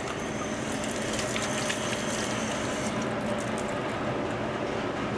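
Water running from a faucet into a stainless-steel sink as hands are rinsed under it, thinning out about three seconds in, over a steady low hum.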